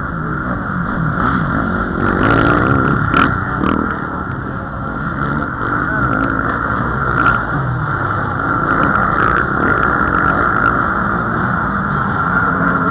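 Several motocross bikes racing over a dirt track, their engines revving up and down as riders pass.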